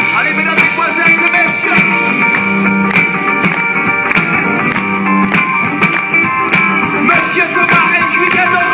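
Live band music: a guitar and keyboard playing an instrumental passage over a steady beat.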